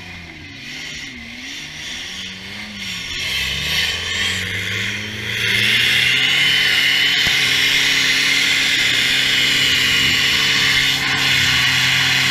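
Off-road 4x4 engine revving up and down in deep mud. About five seconds in, a loud, steady high-pitched whine sets in over an engine held at a steady speed: an electric winch hauling the vehicle under load.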